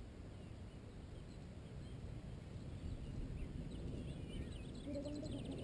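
Small birds chirping faintly over a steady low outdoor rumble, with the chirps clustering in the second half.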